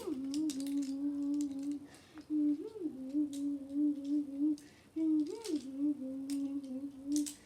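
A person humming one held note, with a short swoop up and back about every three seconds, over light clicks and rustles of things being handled.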